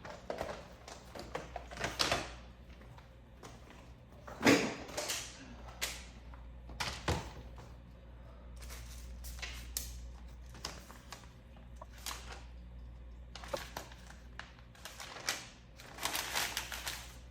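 Scattered knocks, clicks and rustles of boxes and stored items being moved and handled, the loudest a thump about four and a half seconds in, over a low steady hum.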